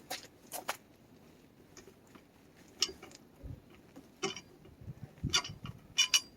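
Scattered light clicks and clinks of hand tools and small hardware being handled, with a few sharp ones in quick succession near the end.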